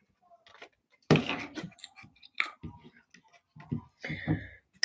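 Close-up chewing and crunching of a spicy snack, with a loud crunch about a second in and irregular chewing after it.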